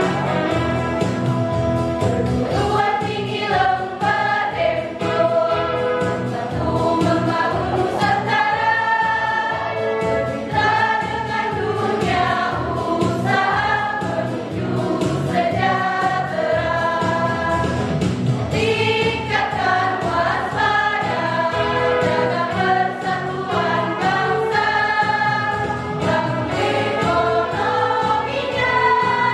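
A choir of young women singing together.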